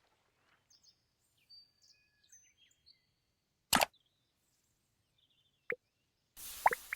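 Faint bird chirps in the background. About halfway through comes a single short, sharp pop from a squishy toy, then a small click, and near the end a brief soft rustle.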